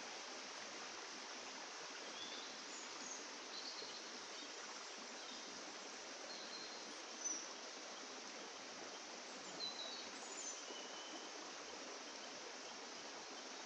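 Steady soft hiss with a few short, high bird chirps scattered through it; the loudest chirp comes about seven seconds in.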